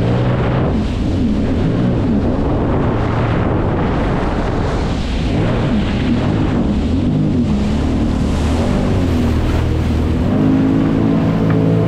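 Jet ski engine running under way, its pitch rising and falling repeatedly as the throttle changes, then holding steadier near the end, over a constant rush of water and wind.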